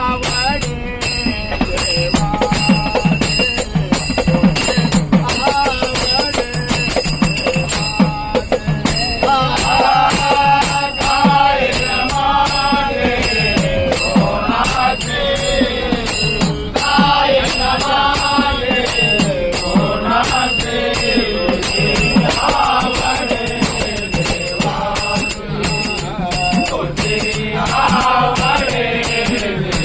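Marathi devotional bhajan: a drum beating a steady rhythm with small cymbals ringing throughout, and a singer's voice coming in strongly about nine seconds in, holding long bending notes.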